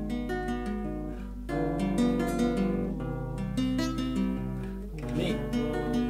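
Background music: acoustic guitar, plucked and strummed notes.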